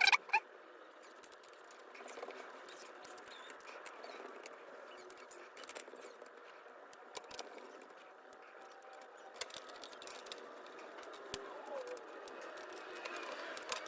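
Faint clicks, taps and light scrapes of a laptop's parts being handled and fitted back together during reassembly, over a steady low hiss. There is a brief louder clatter right at the start, and the clicks come more often near the end.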